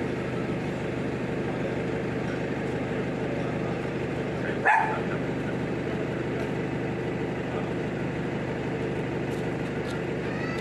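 Flatbed tow truck's engine idling steadily, with a single short dog bark about halfway through.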